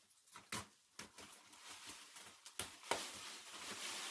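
Plastic wrapping being cut with a small cutter and pulled back off a foam mattress: a few sharp clicks, then a rustling, crinkling hiss of plastic that grows louder toward the end.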